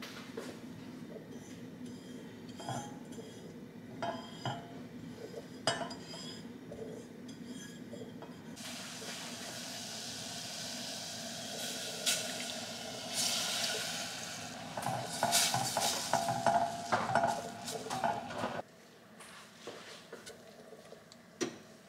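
A silicone spatula clicks and knocks on a stainless-steel saucepan of heating pandan juice. About eight seconds in, milk, cream and coconut milk are poured into the hot pan with a rushing hiss, then stirred with scraping and clinking of the spatula on the pan. The sound drops abruptly near the end.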